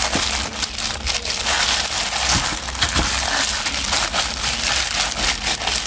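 Thin disposable plastic gloves crinkling and rustling while hands knead and rub marinade into a wet, boiled pig's head in a metal bowl, with a dense crackle of small clicks and squelches throughout.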